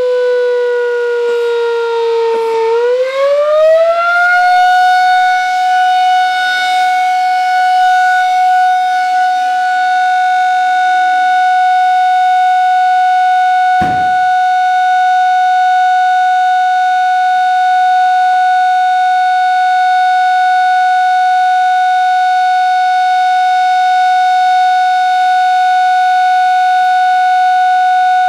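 Volunteer fire brigade's alarm siren mounted on a mast. Its pitch sags slightly, then rises over about two seconds and holds one loud steady tone, with a brief click about halfway through.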